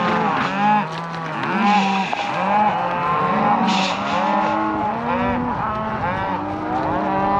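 A herd of cows and calves mooing and bawling all at once: many overlapping calls, some deep and some higher-pitched, rising and falling in pitch without a break.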